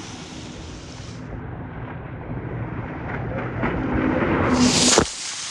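Jet ski engine running under way, a low rumble that grows louder, with a loud rushing noise rising near the end before it cuts off suddenly.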